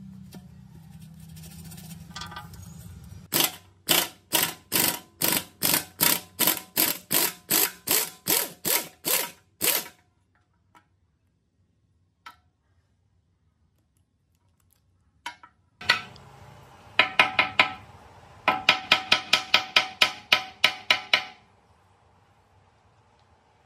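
Ratchet wrench clicking in regular strokes, about two a second for several seconds, then after a pause a faster run of about four clicks a second, as bolts are turned on a rusty engine tank.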